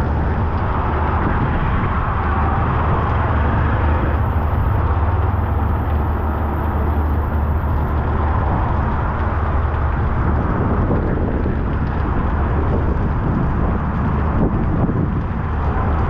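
Heavy rain pouring on a city street, a dense, steady hiss, with a low rumble underneath that is strongest in the first half and eases off after about ten seconds.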